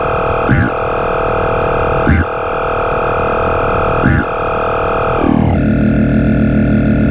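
Electronic noise music: a loud, dense synthesizer drone of several held tones, cut by brief swooping sweeps about every second and a half. About five seconds in it slides down in pitch into a low, pulsing buzz.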